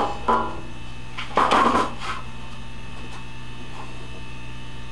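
Hammer tapping staples flush into a wooden frame: a tap just after the start and a quick cluster of taps about one and a half seconds in, then only a steady low hum.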